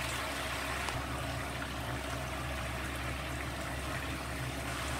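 Scallion-oil sauce bubbling and sizzling softly in a wok, heated only by the oil left hot from frying. A steady, even hiss, with a low steady hum underneath.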